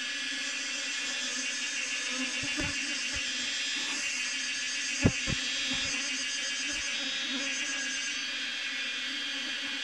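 A swarm of honeybees buzzing steadily as they fly around the hive box. There are a few soft knocks and one short, sharp tap about halfway through.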